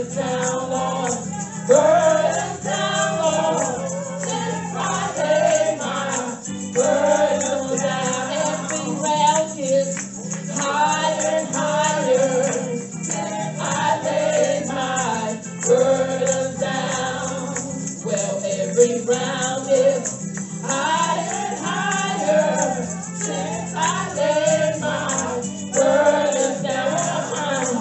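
Gospel singing, a woman's voice leading through a microphone with others singing along, and a tambourine shaken in time.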